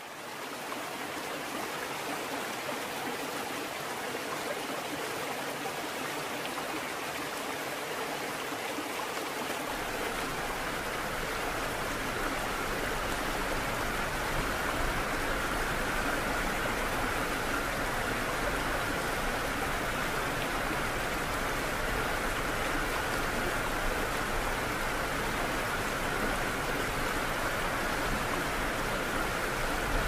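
Steady rushing water that fades in at the start. About ten seconds in, a deeper rumble joins it, and it stays even to the end.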